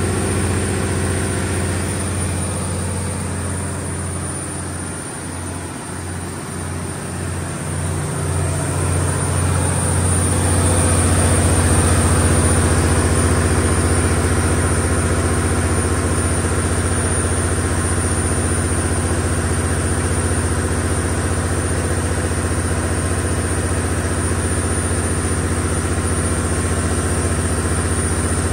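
Cummins KTA19-G4 inline-six turbodiesel of a 500 kW standby generator set running steadily at 1800 RPM under heavy electrical load, about 490 kW. It dips slightly for a few seconds, then grows louder about ten seconds in and holds steady.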